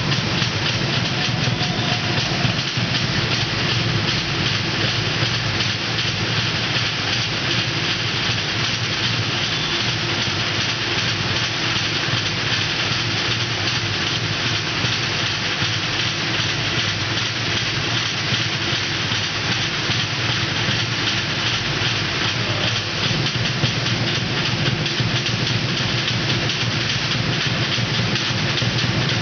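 Fast, unbroken drumming, a dense steady clatter with no pauses: the percussion that drives a Samoan fire knife dance.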